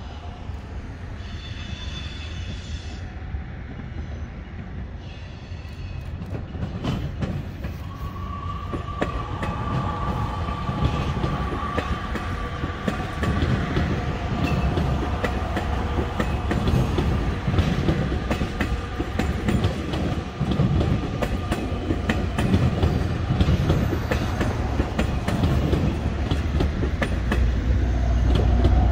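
Metra Electric bilevel electric commuter train passing on the tracks below, building up from about seven seconds in. Wheels click over the rail joints over a low rumble, with a steady high-pitched tone held for much of the pass.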